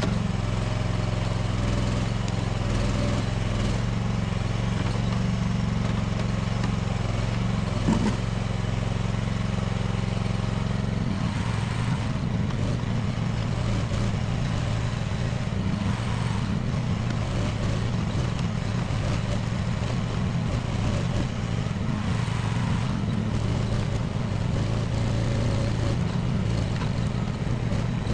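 Small engine of a budget mini excavator running steadily, with a single knock about eight seconds in. About eleven seconds in the engine note changes and turns rougher.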